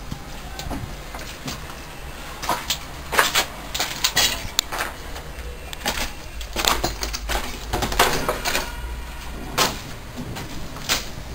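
Scattered sharp knocks and clicks at irregular intervals, about nine of them, over a steady low rumble.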